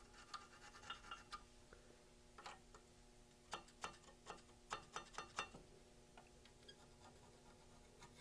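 Screwdriver blade scraping rust off the mounting surfaces of a brake caliper bridge. The strokes are short and quiet, with a quick run of sharper strokes in the middle, then only faint scrapes.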